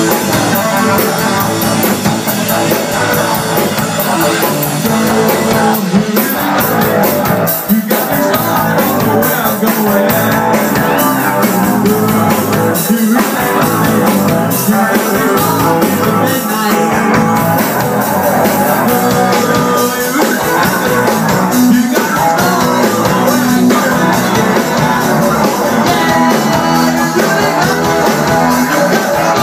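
Live rock band playing loudly: electric guitar over a drum kit, without a break.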